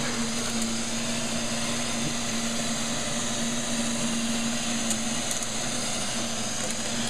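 Robot vacuum cleaners, an iRobot Roomba 560 and a Neato XV-11, running: a steady motor hum with brushes whirring and a few faint clicks.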